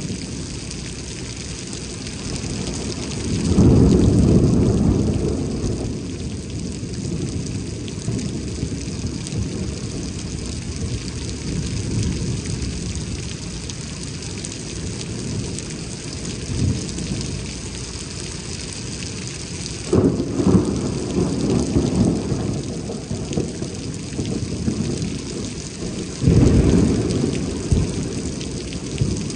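Heavy rain falling steadily in a thunderstorm, with three low rumbles of thunder: a long one about four seconds in, and two that start suddenly about twenty and twenty-six seconds in.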